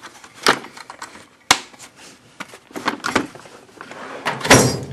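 Clicks and knocks from handling a metal tool chest, then a louder sliding rattle near the end as a drawer is pulled open.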